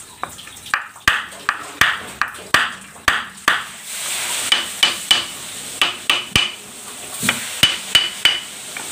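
Hammer striking a flat metal piece held against the seized centre fitting of a soybean grinder's disc, knocking it to loosen it: a long series of sharp blows, about two a second, several of them ringing metallically in the second half.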